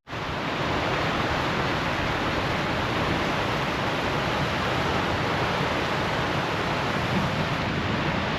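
Floodwater rushing through the Trinity River spillway, raging: a steady, even roar of water that starts abruptly on a cut.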